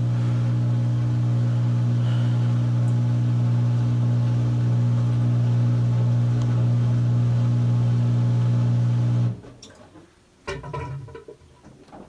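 Maytag front-load washer's drain pump running with a steady hum, pumping out the water at the end of a drain cycle with spin turned off. It cuts off abruptly about nine seconds in.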